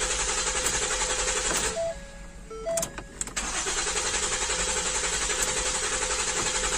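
2013 Ford Flex's V6 being cranked by the starter motor without catching, in two long pulsing cranking attempts with a short pause between them in which a few electronic chime beeps sound. This is a crank-no-start with a fuel pump control circuit open code stored.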